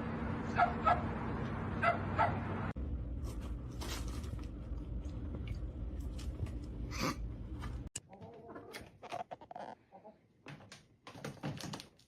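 A dog barking in short yips, two or three at a time, then scattered clicks and knocks with one more brief call.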